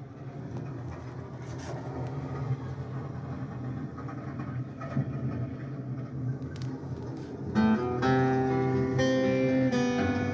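A low, steady rumble slowly grows louder. About three-quarters of the way through, picked acoustic guitar notes come in over it: the start of a song's guitar intro.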